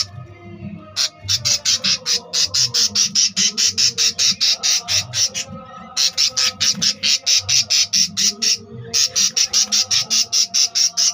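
Budgerigar chicks calling: rapid runs of short, harsh, high cheeps at about five a second, broken by two brief pauses.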